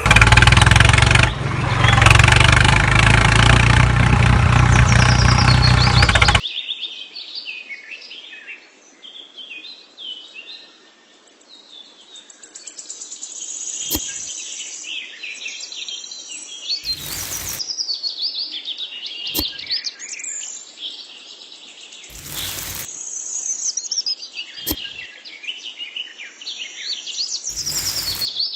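Small birds chirping and calling in quick, high phrases, with a few sharp knocks or taps now and then. Before that, a loud, dense sound cuts off suddenly about six seconds in.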